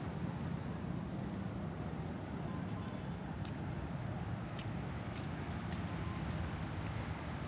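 Steady city street traffic: a continuous low rumble of passing cars, with a few faint ticks over it.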